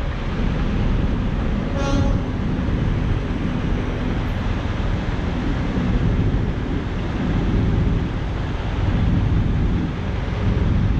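Steady low rumble of a semi truck's engine and tyre noise as the truck rolls slowly across a parking lot. About two seconds in there is a brief high-pitched tone.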